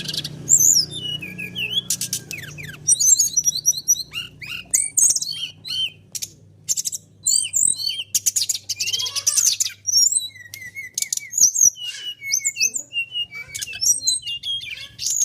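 Songbird singing a fast, unbroken medley of high chirps, whistled slurs and short rattling trills. This is the kind of prompting song that keepers play to draw other birds into singing.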